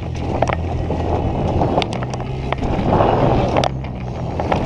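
Mountain bike riding fast over a dirt jump trail, heard from a camera on the rider: tyres rolling and scrubbing on dirt, with sharp knocks and rattles from the bike as it hits the terrain.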